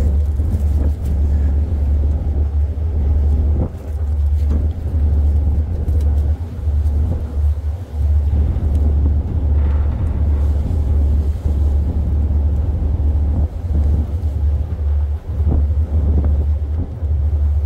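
Ship's engine running under way: a loud, steady low rumble.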